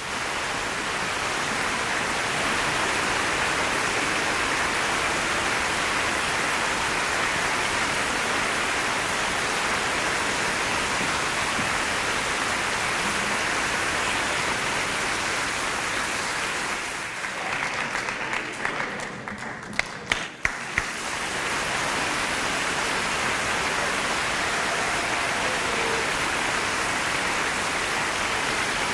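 Sustained applause, with the children of the choir clapping. About two-thirds of the way through it thins briefly to a few separate sharp claps, then swells back to full applause.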